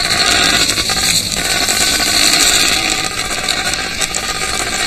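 Magnificent frigatebird colony: a continuous dense rattling and drumming from displaying males with inflated throat pouches.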